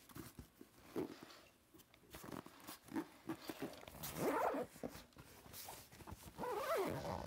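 A nylon camera backpack being handled and shifted: fabric rustling, knocks and a couple of sharp clicks. Twice, about four seconds in and again near the end, a short pitched vocal sound bends up and down, louder than the handling.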